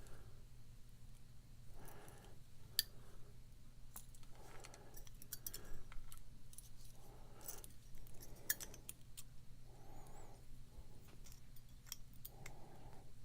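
Small metal clicks and scrapes from hand tools working in a padlock's core, irregular and quiet.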